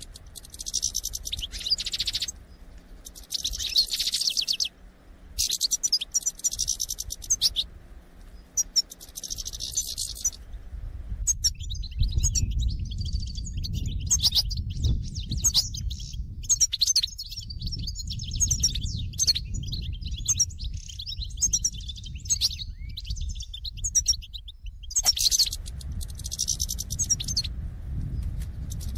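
A flock of European goldfinches twittering and squabbling: the flock chatter used as a lure call for trapping goldfinches. At first it comes in short bursts of about a second with gaps between. From about a third of the way in it runs without pause over a low rumble, then breaks back into bursts near the end.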